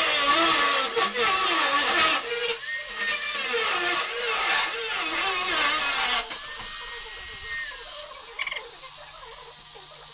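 Power tool cutting the damaged top sheet metal of a truck flatbed: loud and harsh with a whine that wavers in pitch, then dropping to a quieter steady sound about six seconds in.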